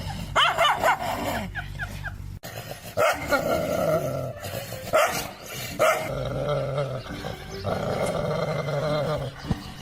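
A dog barking and growling, with short sharp barks and longer growls.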